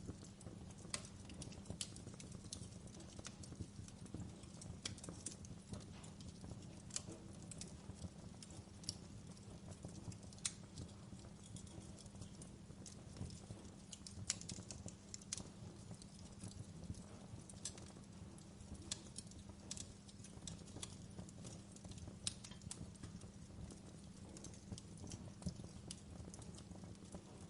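Wood fire crackling: irregular sharp pops and snaps, a few every second, over a steady low rumble of burning.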